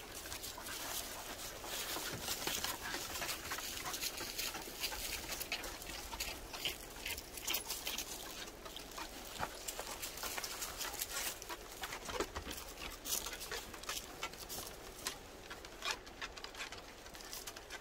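A pack of corgis moving about on a wooden deck: scattered light clicks and patter of claws and paws on the boards, with some faint dog noises.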